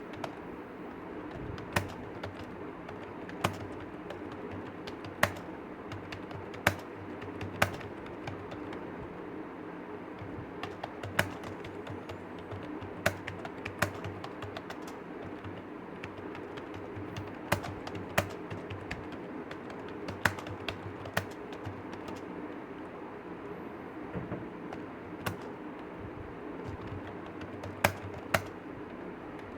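Computer keyboard being typed on during a typing-speed test: irregular keystrokes, with a few much louder clicks every second or two, over a steady background hum.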